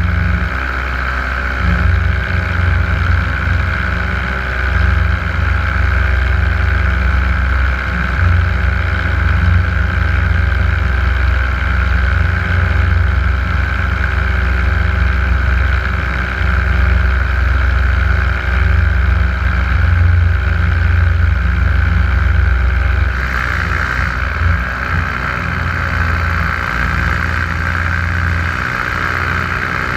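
Paramotor engine running steadily in flight, with a flickering low rumble of wind on the microphone. The sound shifts a little about three-quarters of the way through.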